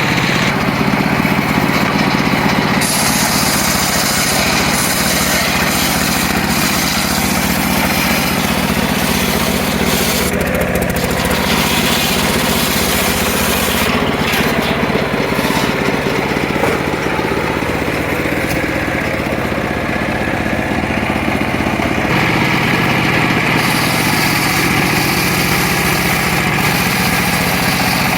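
Circular saw running steadily, its sound shifting several times as it cuts wood.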